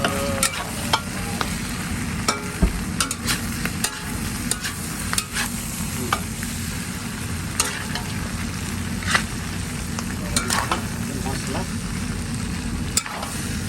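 Mutton for tas frying in a pan on high heat, a steady sizzle broken by frequent irregular sharp pops and clicks as it is stirred.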